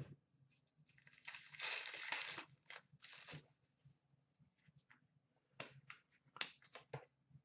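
Trading cards being handled: a noisy rustle of about a second and a half starting about a second in, two shorter rustles just after, then a few short flicks and taps near the end.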